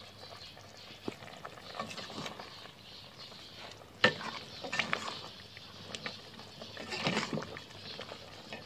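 Curry simmering in an aluminium pot, then a metal ladle stirring it, clinking and scraping against the pot from about four seconds in.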